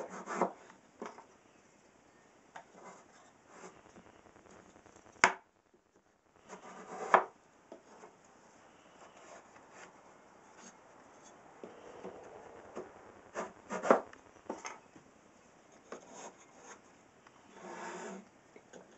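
Wooden column staves and thin splines being handled and slid together dry: scattered wooden knocks and clicks with short sliding rubs, and a sharp click about five seconds in.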